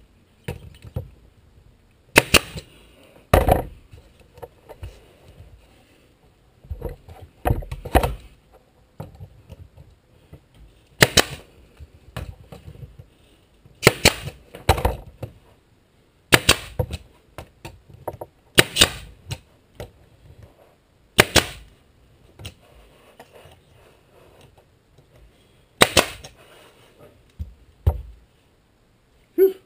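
A staple gun firing staples through a plywood skin into the wooden spars of a trailer frame: about a dozen sharp shots, one to three seconds apart.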